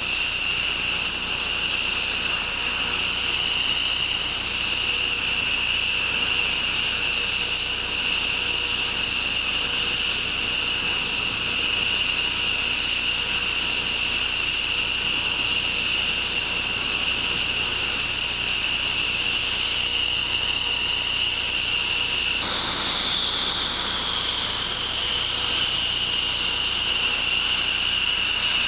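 F-15 fighters' F100 turbofan engines running at idle on the ramp: a loud, steady, high-pitched turbine whine over a rushing hiss. About two-thirds of the way through, one whine tone slides down in pitch as an engine's speed changes.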